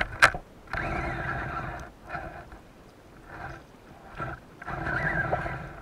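Speargun's taut shooting line and shaft creaking and buzzing underwater in several stretches as a speared mullet pulls against them, after a sharp click at the very start. The longest stretches come about a second in and near the end.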